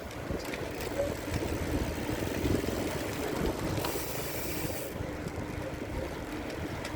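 Steady rumble of a vehicle travelling along a road, noisy and even with no clear engine note.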